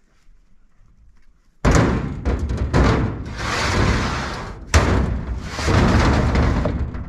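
Heavy stones dropped onto a truck's steel bed and dragged across the metal: two loud bangs, the first about a second and a half in and the second about three seconds later, each followed by rough scraping as the stones are shoved along the floor.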